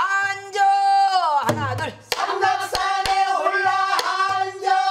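A woman singing pansori in long, wavering held notes. About a second and a half in, her voice glides down and breaks off, then the line resumes. Sharp strokes of a buk barrel drum, beaten with a stick, accompany the singing.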